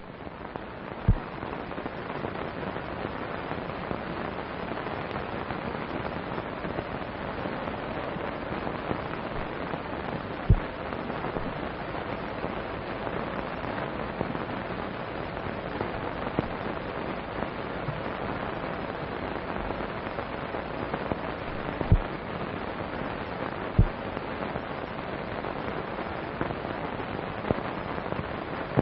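Steady hiss and crackle of a worn 1930s optical film soundtrack, with four sharp low pops scattered through: one about a second in, one near the middle and two near the end.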